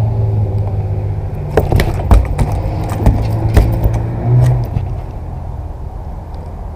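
A walleye being unhooked and handled over a landing net: a run of sharp clicks, knocks and rattles from the lure, net and fish, heard over a steady low rumble. The knocks stop about five seconds in and only the rumble is left.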